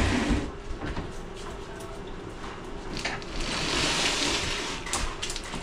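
Heavy wooden cabinet being manhandled on a hand truck: scraping and a few knocks, with a longer scrape from about three and a half to five seconds in as it tips back.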